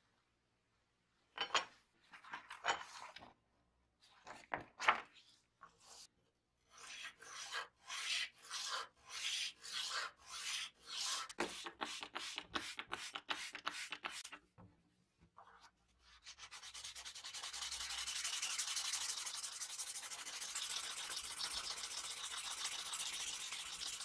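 Wet sandpaper rubbed by hand over a flat polished metal part of a tape dispenser, sanding out scratches. First come separate back-and-forth strokes, about two a second, then about two-thirds in it turns into fast, continuous scrubbing.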